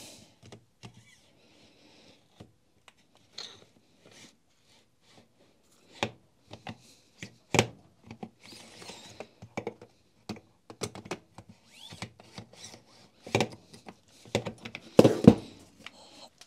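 Irregular clicks and knocks of metal parts as the greased barrel assembly of a Makita HR5001C rotary hammer is worked by hand into its cast aluminium gear housing, with a louder cluster of knocks near the end.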